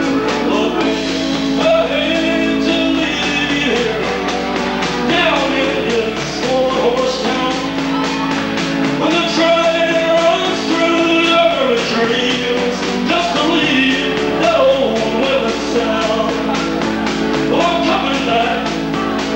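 A rock band playing: a voice singing over guitar, with a steady beat of evenly spaced cymbal-like strokes.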